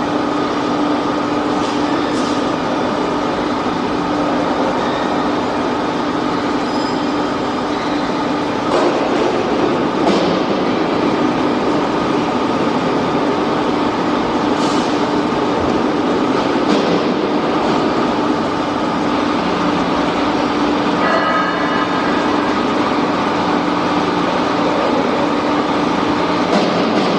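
Loud, steady factory workshop machinery noise: a continuous mechanical hum and drone, with a few light clicks of metal valve parts being handled.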